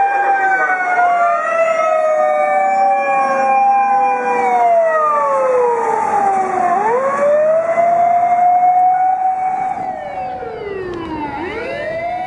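Sirens wailing, several tones at once, each rising and falling slowly over a few seconds. About ten seconds in the sound gets quieter, and one tone sweeps down low and then climbs back up.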